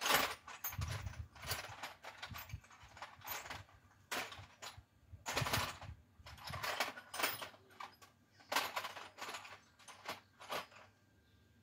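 Metal hand tools clinking and rattling in short irregular bursts.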